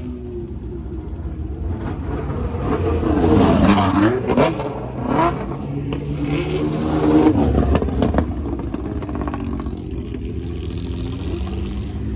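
Historic racing cars rolling past at low speed, engines running with sharp throttle blips; the engine pitch rises and falls, loudest about three to five seconds in and again near eight seconds.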